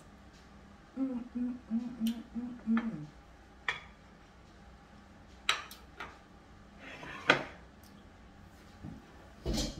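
A woman's closed-mouth "mmm" hums, about six short ones in a row starting about a second in, as she eats. Then ceramic plates clink and clack against the stone countertop as they are shifted, the loudest clack about seven seconds in, with a low thump near the end.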